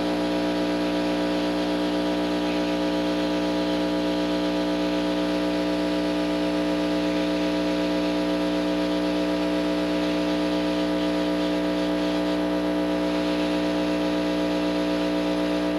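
A heat gun running steadily: its fan motor gives a constant, even-pitched hum over the hiss of blown air. It is heating a solder seal wire connector to melt the solder inside.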